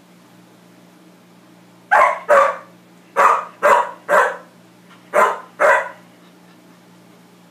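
White poodle barking at its own reflection: seven short barks in three clusters, two, then three, then two, each group about a second apart.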